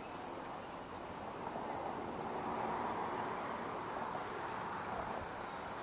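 Steady outdoor rushing noise that swells a second or two in and eases off near the end.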